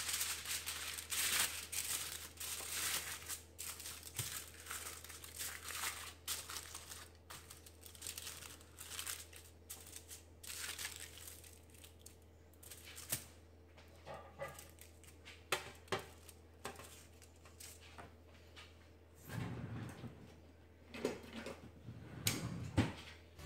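Aluminium foil crinkling and rustling as it is pressed and smoothed into a metal baking tray, busiest in the first ten seconds or so. Later come sparser clicks and a few knocks as a wire rack is set on the lined tray.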